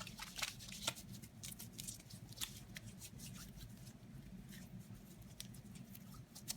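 Disposable gloves being pulled off and handled: irregular soft rustling with many small crackles and clicks.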